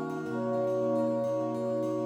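Background music of slow, sustained chords, moving to a new chord shortly after the start.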